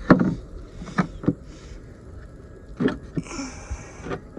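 Five sharp knocks and clatters over a low rumble, the loudest at the start, as plastic car ramps are handled and set in place.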